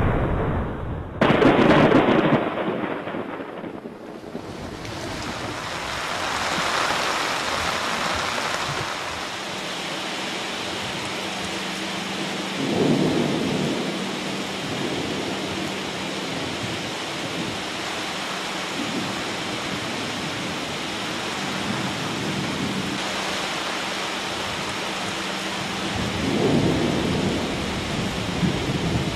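Thunderstorm: a loud crack of thunder about two seconds in, then steady rain with low rumbles of thunder in the middle and near the end.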